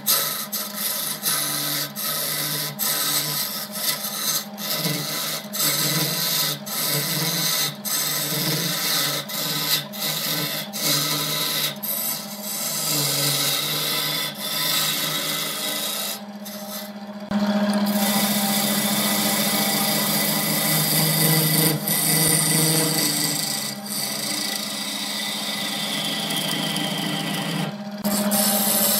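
Wood lathe motor humming steadily while a hand-held chisel shaves a spinning wooden blank, a dry scraping, rasping cut. The cut breaks off and restarts many times in the first half, stops briefly just past halfway, then comes back louder and steadier.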